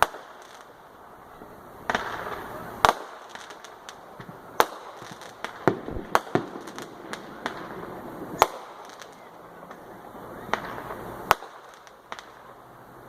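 Fireworks going off: a dozen or so sharp bangs and pops at irregular intervals, the loudest about three, eight and eleven seconds in.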